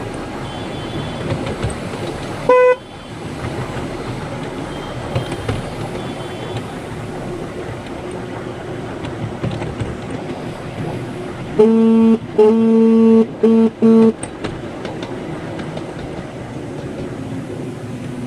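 Ride-on miniature garden-railway train running along the track, its wheels rumbling steadily on the rails. A single short, higher horn toot sounds about two and a half seconds in, and a run of four lower horn toots, the second one longer, comes about twelve to fourteen seconds in.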